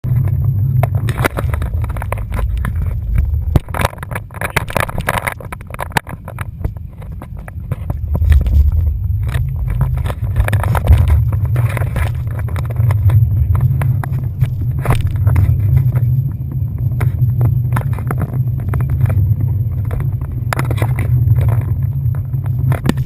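Speedboat engine running at speed, a heavy steady rumble, heard from a camera mounted on the boat, with frequent short knocks and bursts of noise over it.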